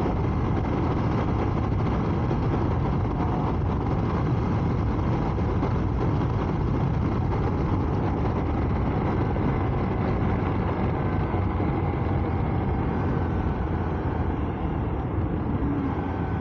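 Honda Varadero 125 motorcycle under way, its small 125 cc V-twin engine running at a steady pace with wind and road noise over it.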